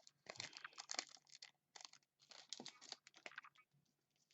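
Faint handling of trading cards and a foil pack wrapper: quick clicky rustling and crinkling in two short flurries, then a brief lull near the end.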